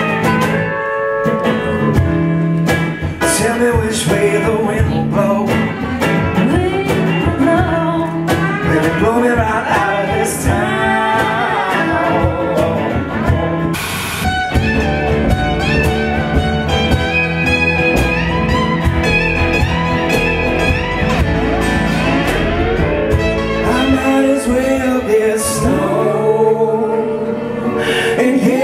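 Live acoustic band music with singing, acoustic guitar and upright bass, interrupted by a short burst of static hiss about halfway through.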